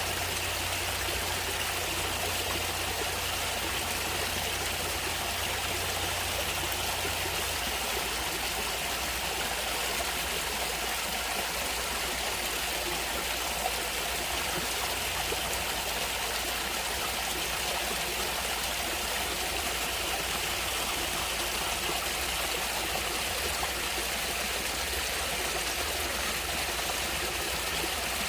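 Natural running water, a stream flowing in a steady, even rush.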